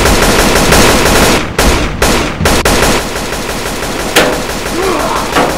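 Automatic rifle fire: a dense, rapid burst for about the first three seconds, then quieter, with single sharp shots standing out about four and five and a half seconds in.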